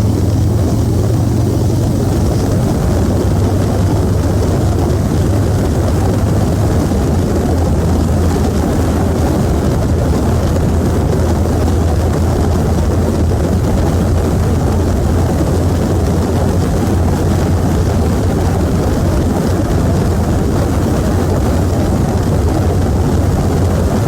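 Electric fan running: a steady low hum with a rush of moving air.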